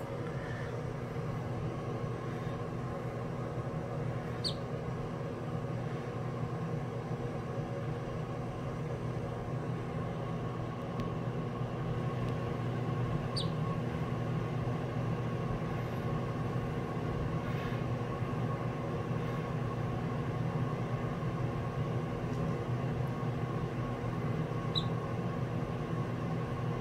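A steady low droning hum with several fixed tones, and over it three faint, brief high peeps from a Muscovy duckling, spaced several seconds apart.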